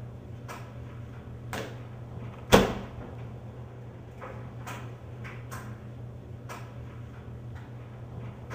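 A front-loading washing machine's door slams shut once, sharply, about two and a half seconds in, over a steady low hum, with a few faint clicks before and after.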